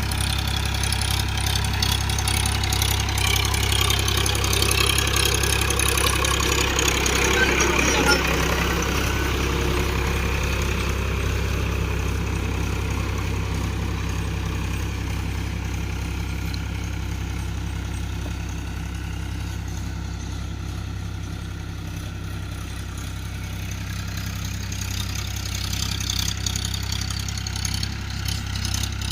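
Tractor's diesel engine running steadily under load while pulling a plough through a field. It is louder over the first third and again near the end, and dips in between.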